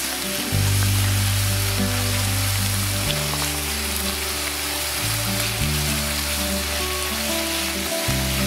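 Thin-sliced pork shoulder loin sizzling in a frying pan, a steady even hiss, under background music with held bass notes.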